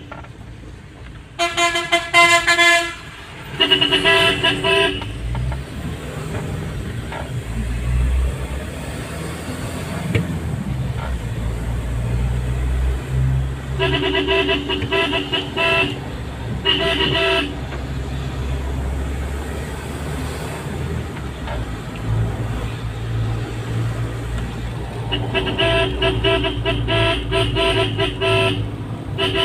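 Vehicle horn sounding in several blasts, two short ones in quick succession near the start, two more midway and a long one near the end, over the steady low hum of a running engine.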